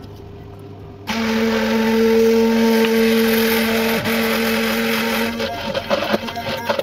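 Hand-held immersion blender switching on about a second in and running with a steady motor hum as it emulsifies egg and oil in a tall plastic beaker. Near the end the hum turns uneven and choppy as the mixture thickens.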